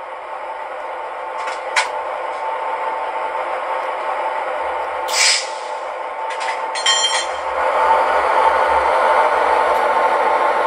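Sound decoder of a Lenz gauge 0 V60 model diesel locomotive playing a diesel engine running at standstill through its loudspeaker. A short air hiss comes about five seconds in, and the engine sound grows louder from about seven and a half seconds.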